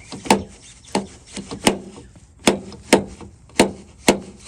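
A hard plastic trim part knocking repeatedly against a painted surface, making about eight sharp, uneven taps. This is the contact point that chips the paint, which felt padding is meant to cushion.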